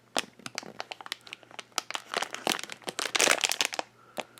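Blind-bag packaging crinkling as it is handled, a run of crackles that grows busiest about three seconds in.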